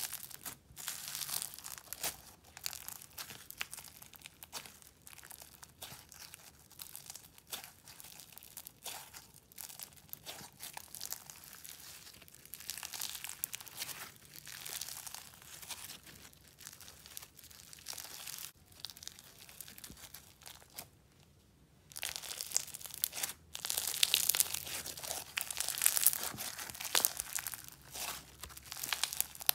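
Crunchy slime being squeezed and pressed by hand, making dense, irregular crackling and crunching. There is a brief pause about 21 s in, and the crunches are louder after it.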